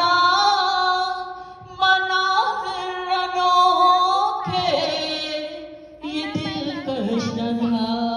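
A naat sung by a voice in long, gliding melodic phrases, with no instruments heard.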